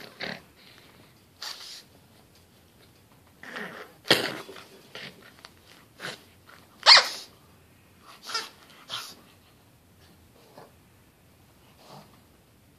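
Pug snorting and snuffling in short, irregular bursts while she mouths and shoves a stuffed toy in play. The loudest bursts come about four and seven seconds in.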